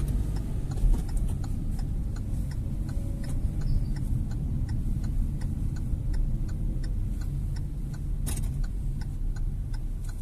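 Hyundai HB20's turn-signal indicator ticking evenly, roughly two to three clicks a second, as the car signals a left turn, over the low hum of engine and road in the cabin. A single sharp knock comes about eight seconds in.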